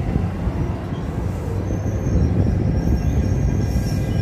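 NJ Transit passenger coaches rolling past the platform with a steady low rumble. From about one and a half seconds in, a high thin wheel squeal joins it.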